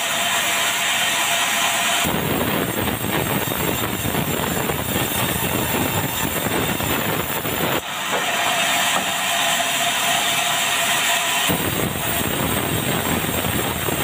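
Circular sawmill blade running and sawing through red meranti logs in a loud, continuous mechanical din. The sound fills out with deeper noise about two seconds in and again near the end as the cut changes.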